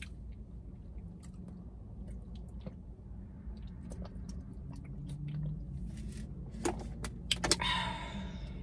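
A person drinking water from a plastic bottle: small scattered clicks of swallowing and the bottle over a faint steady low hum, with a few sharper clicks and a short louder rush of noise near the end.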